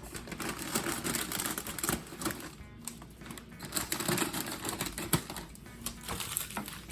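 Dense, rapid crinkling and clicking of snack bags of popcorn being handled.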